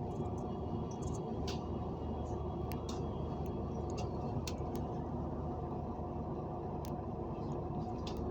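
Electric train running with a steady low rumble and hum, with a few faint clicks.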